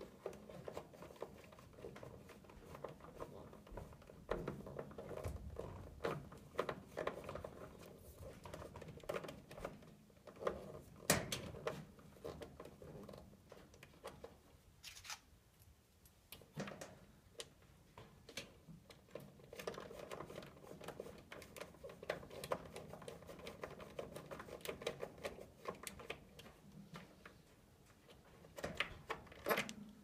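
Scattered small clicks, taps and rustles of hands fitting a new draft inducer blower onto a gas furnace, its plastic housing and metal mounting parts knocking against each other, with a short lull midway.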